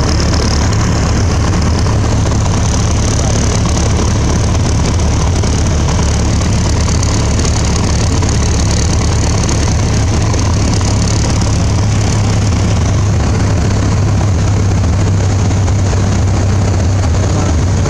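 Piper Warrior II's four-cylinder Lycoming engine running at low power with a steady low hum and rushing air, heard inside the cockpit through the landing flare and rollout. The higher rushing fades somewhat about twelve seconds in as the plane slows on the runway.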